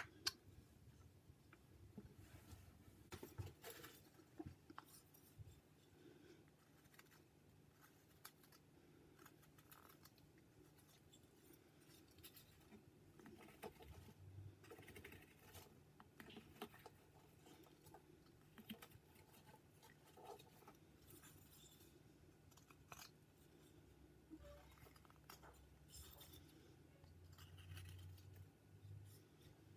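Faint, irregular clicks and scrapes of a whittling knife paring thin slivers off a small wooden carving.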